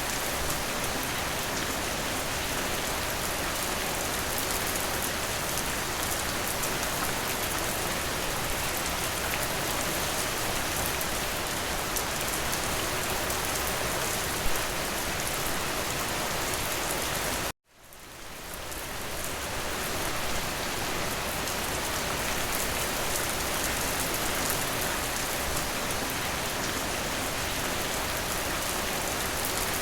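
Steady heavy rain, an even dense patter, with one sharp louder drop about halfway. About two-thirds through, the rain cuts out abruptly and fades back in over a couple of seconds, the join of a looped recording.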